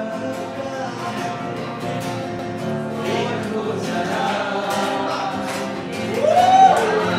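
A man singing with acoustic guitar accompaniment. Near the end the voice slides up and back down on a long note, the loudest part.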